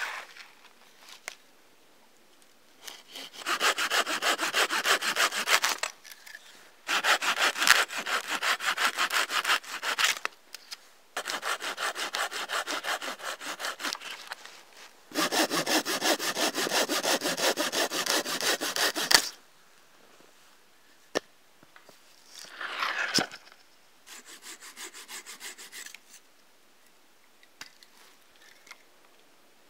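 Hand saw cutting through a log in four bouts of quick, even back-and-forth strokes, each a few seconds long with short pauses between. A short rasp and a few softer strokes follow later.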